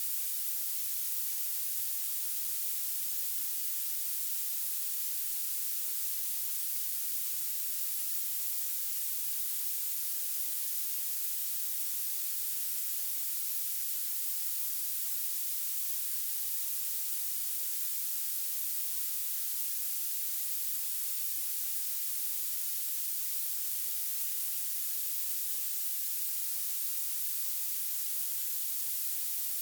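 Synthetic violet noise: a steady, even hiss weighted strongly toward the highest pitches, with almost no low end.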